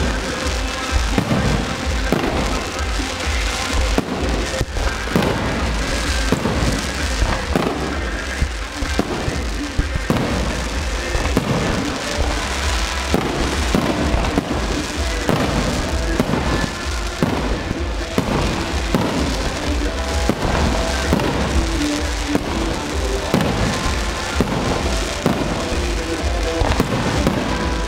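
Aerial firework shells bursting in a dense, continuous barrage of bangs and crackles, with music playing underneath as part of a pyromusical display.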